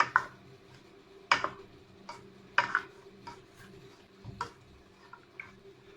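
A spoon stirring chicken and spice powders in a cooking pot, knocking against the pot about once a second.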